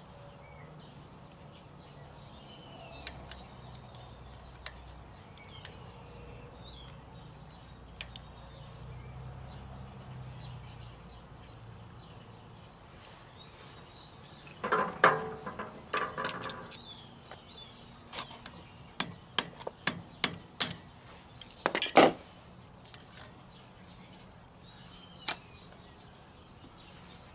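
A metal tool knocking and tapping at the lock nuts and keeper plate of a semi truck's axle hub: a cluster of knocks around the middle, then a quick run of sharp taps, the loudest near the end of the run. Birds chirp faintly throughout.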